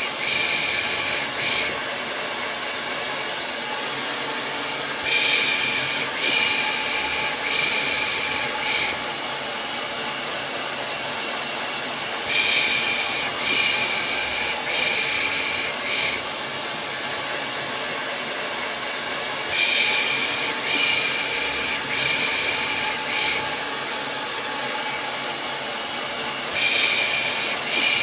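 Hair dryer blowing steadily, overlaid with rhythmic 'pış pış' shushing used to soothe a baby: runs of about four hissing shushes, one a second, repeating every seven seconds or so.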